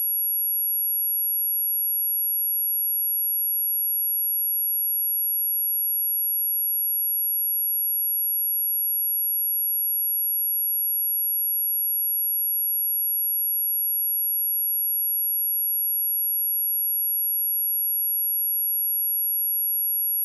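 Pure synthesized sine tone at 11347 Hz, a steady high-pitched whistle held at one pitch and level, played as a speaker test and cleaning tone.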